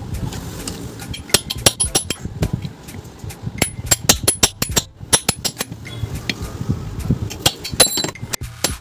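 A hammer striking the metal body of an old ceiling fan to knock it open: many sharp metallic knocks in quick runs, some with a short ring.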